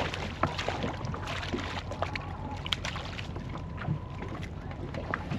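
Steady wind rumble buffeting the microphone on a small boat, with water lapping and scattered light knocks and taps.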